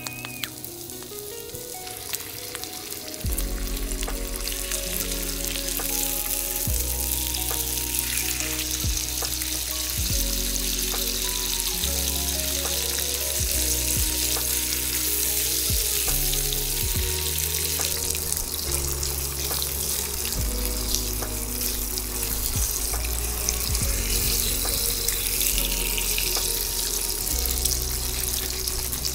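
Background music: a bass line and chords that change every second or two, coming in fuller about three seconds in, over a steady hiss.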